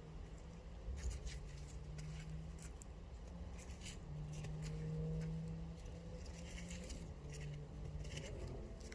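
Quiet scraping and clicking of potatoes being dug out of garden soil and handled, a scatter of short irregular clicks, over faint low tones.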